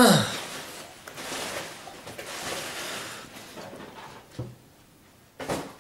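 A man lets out a groan that falls in pitch, then breathes hard in long noisy breaths, with one sharp breath near the end. These are pain reactions to the burn of pure capsaicin pepper extract he has just eaten.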